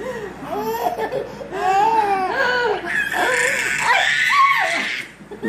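A baby laughing hysterically in a run of short rising-and-falling laughs, then a long high-pitched squeal from about three seconds in that breaks off near the end.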